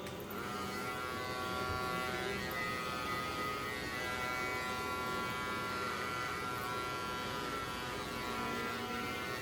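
Electric hair trimmers switched on at the start and buzzing steadily.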